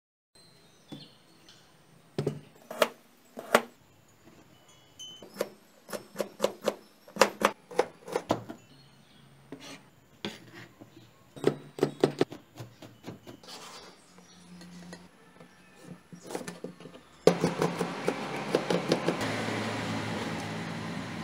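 Kitchen knife chopping on a plastic cutting board: irregular runs of sharp taps and clicks. About three-quarters of the way through, a steady background noise comes in under the chopping.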